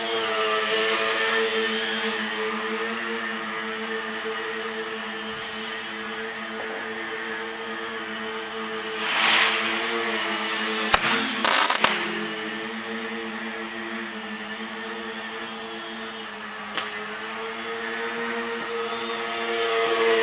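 Tricopter's three electric motors and propellers buzzing steadily, the pitch wavering as the throttle is worked. A rush of air swells about nine seconds in, and a few sharp knocks follow a couple of seconds later.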